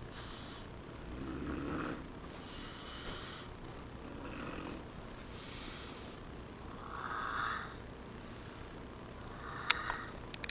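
A sleeping woman snoring, a rasping snore on the breaths about every one and a half seconds. A couple of sharp clicks near the end.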